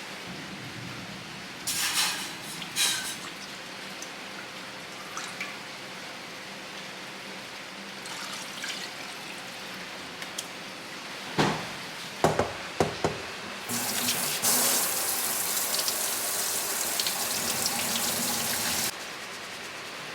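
Water running in a steady stream for about five seconds, then cut off suddenly, after a few short knocks.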